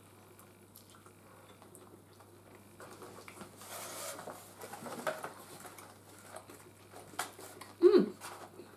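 Close-up eating sounds: forks clicking and scraping in styrofoam takeaway containers, with chewing. They pick up about three seconds in, and a short loud vocal sound comes near the end.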